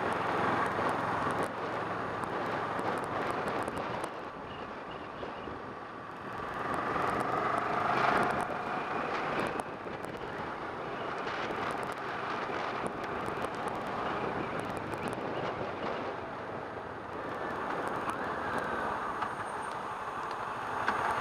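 Kawasaki Ninja 650 parallel-twin motorcycle being ridden on the road, heard with wind rushing over the rider's microphone. The sound swells about seven to eight seconds in, then settles back.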